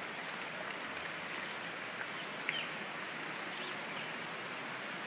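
Steady hiss of rain falling, blended with the rushing of a muddy river in flood, with a small tick about halfway through.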